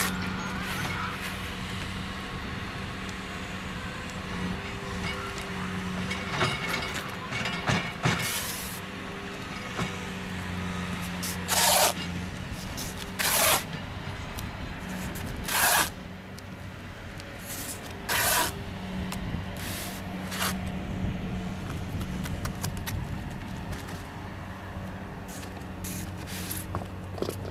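Filament tape being pulled off the roll and pressed along a foam pool coping piece, with several short, loud ripping sounds, four of them loudest in the middle stretch. A steady low engine hum runs underneath.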